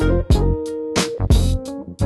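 Instrumental music: a beat of sharp drum hits over a deep bass line, with held melodic notes.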